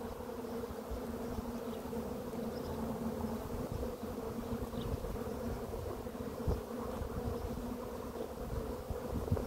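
Honeybees from an opened nucleus colony buzzing in a steady, even hum.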